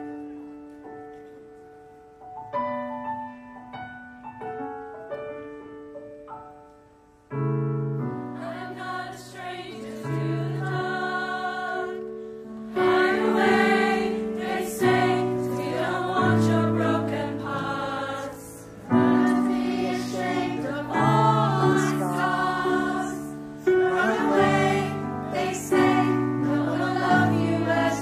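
Large mixed choir singing in harmony. A soft, sparse introduction gives way to the full choir about seven seconds in, and the singing grows louder around thirteen seconds.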